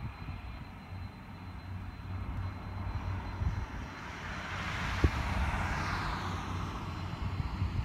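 Distant jet engines of a Boeing 767-300 running on the runway over a steady low rumble. A hiss swells in the middle and fades with a falling pitch. There is one sharp thump about five seconds in.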